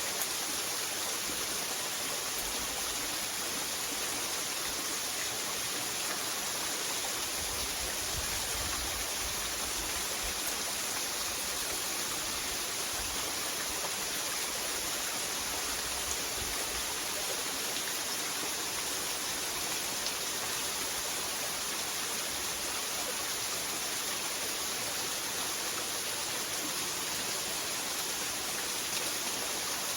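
Waterfall's steady rush of falling water, an even hiss without breaks.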